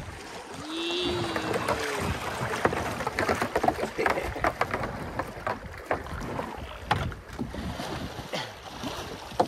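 Fast, shallow creek water rushing past a tandem canoe, with paddle blades splashing in irregular strokes. About a second in, there is a brief pitched voice sound.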